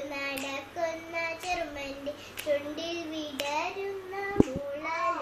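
A single voice singing a Malayalam poem unaccompanied, in long held, gently gliding notes. There is one sharp knock about four seconds in.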